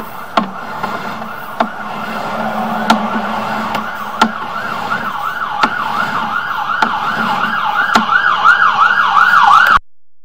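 A siren warbling up and down about three times a second, growing louder, over a steady low hum, with sharp clicks about every second and a quarter. All sound cuts off suddenly near the end.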